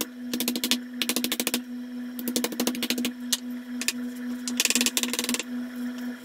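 Kitchen knife chopping raw chicken on a wooden cutting board in several quick runs of rapid strokes, over a steady low hum.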